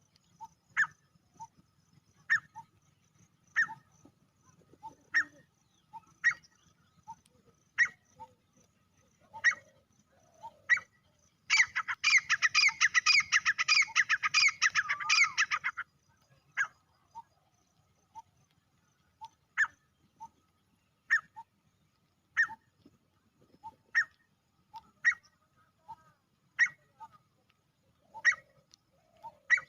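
Male grey francolin calling. Short, sharp single notes come about every second and a half. About twelve seconds in, a loud, fast run of harsh repeated notes lasts about four seconds.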